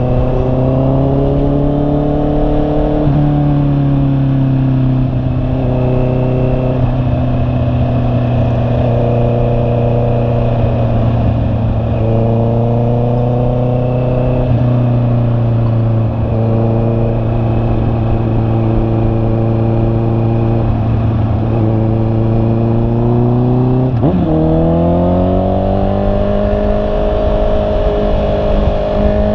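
Honda CB650R's inline-four engine running while riding, its note rising and falling several times with throttle and gear changes, dipping sharply and climbing again near the end. A low rush of wind noise sits underneath.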